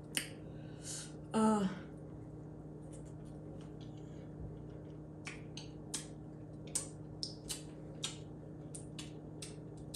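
Wet mouth clicks and lip smacks of someone chewing food with the mouth closed, a brief hummed "mm" about a second and a half in, then a quick run of sharp smacking clicks through the second half. A steady low electrical hum runs underneath.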